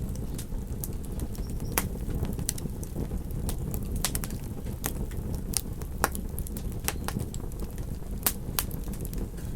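Wood campfire crackling, with irregular sharp pops and snaps every fraction of a second, over a steady low rumble.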